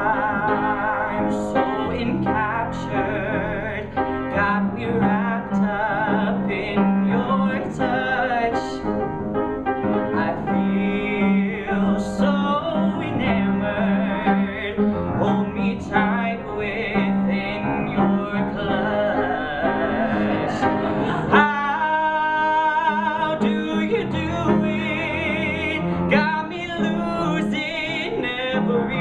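A male singer performing a musical-theatre-style ballad with vibrato, accompanied by piano.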